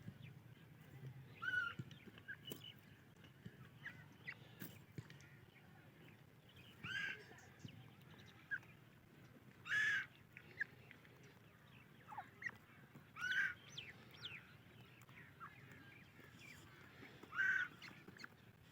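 Female francolin (teetar) calling: short, loud calls repeated about every three to four seconds, five in all, with fainter short notes between.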